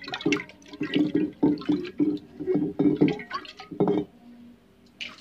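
Water splashing and sloshing around a clear jar in a quick run of irregular splashes, dying down about four seconds in, with one small splash near the end.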